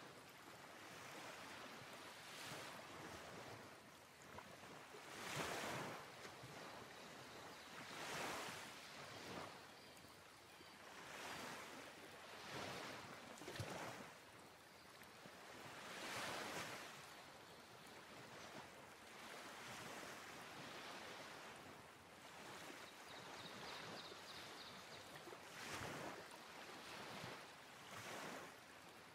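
Waves washing in: a soft rushing that swells and fades every two to three seconds.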